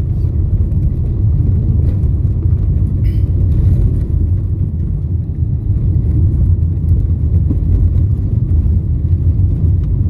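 Steady low rumble of a car driving on a gravel road, tyre and engine noise heard from inside the cabin.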